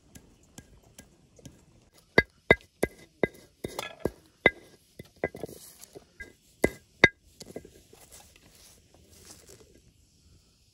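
A round hand stone knocked down onto a flat stone slab about a dozen times, crushing white crystals. Each knock is sharp with a short ring. Near the end comes a soft sifting rustle as the crushed grains are sprinkled.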